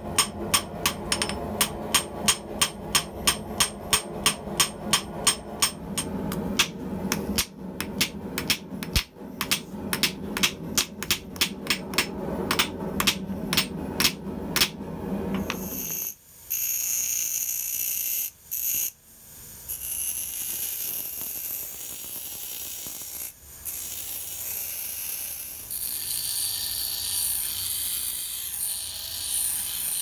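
Hammer blows on a hot steel billet over a steel block anvil, about two to three a second and then more spaced out, with a steady hum beneath. About halfway through they give way to a bench grinder's abrasive wheel grinding the hardened billet: a steady high hiss that breaks off briefly twice as the steel is lifted from the wheel.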